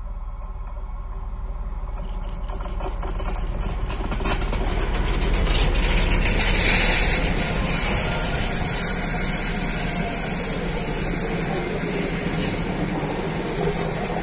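SU45 diesel locomotive approaching and passing with its engine running, loudest as it goes by about six to seven seconds in. Its passenger carriages follow, wheels rumbling and clicking over the rails.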